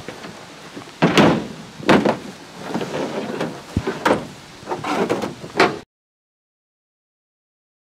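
A deer carcass is heaved and slid onto a pickup truck bed, making several sharp thuds and knocks with scraping between them. The sound cuts to dead silence about six seconds in.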